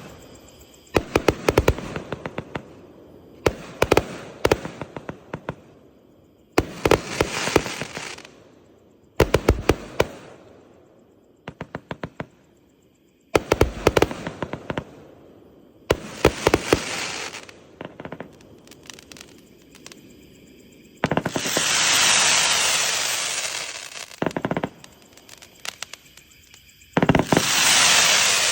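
A 208-shot consumer fireworks cake firing volley after volley of rapid launch shots and bursts, a new volley every few seconds. About 21 s in, and again near the end, come longer hissing, crackling bursts of about three seconds each.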